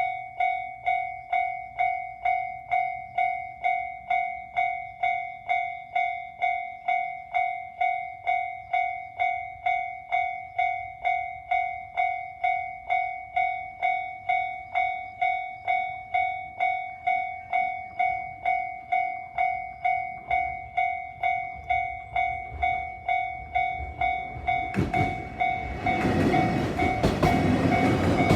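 Japanese level-crossing warning bell ringing, a steady repeated 'kan-kan' stroke a little over twice a second. About 25 seconds in, a train reaches the crossing and its wheel and running noise rises over the bell.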